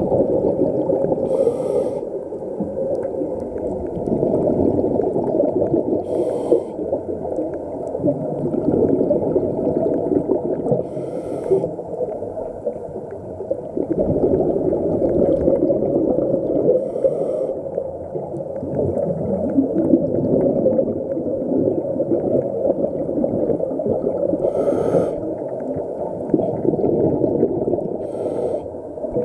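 A scuba diver's regulator breathing underwater: a steady muffled rumble, broken about every four to six seconds by a short gurgling burst of exhaled bubbles.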